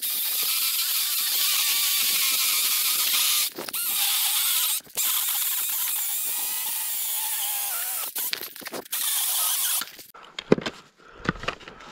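Electric pole saw running at full speed, its chain cutting through a thick tree trunk with a steady high-pitched whine. It drops out briefly twice and stops about ten seconds in, followed by a few knocks.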